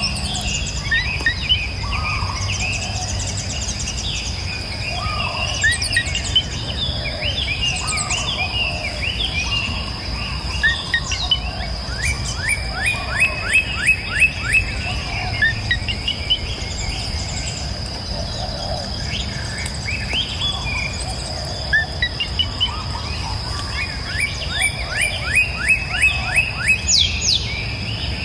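Several songbirds chirping and singing together in forest ambience, over a steady high-pitched tone and a low background rumble. Twice, once near the middle and once near the end, one bird gives a rapid run of quick repeated notes, about seven a second.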